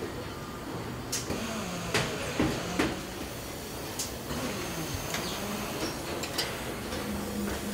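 Car assembly line noise: a steady machinery hum with a motor whine that dips and rises in pitch around the middle, and scattered sharp metallic clicks and knocks from tools and handling equipment.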